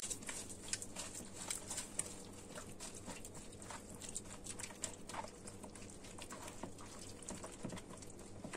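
Hand squeezing soft margarine through oil, egg yolk and seeds in a plastic bowl: faint, irregular wet squelches and little clicks.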